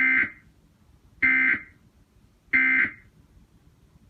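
Emergency Alert System end-of-message signal: three short bursts of digital data tones, each about a third of a second and about 1.3 s apart, marking the end of the broadcast alert.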